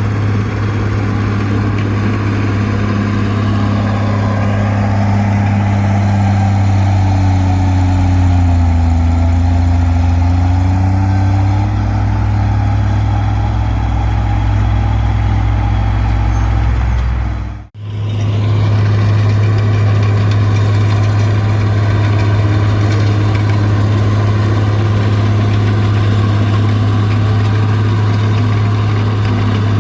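A Komatsu D20P bulldozer's diesel engine runs steadily with a deep drone. Its pitch sags and recovers about a third of the way through, and the sound cuts out for an instant a little past halfway.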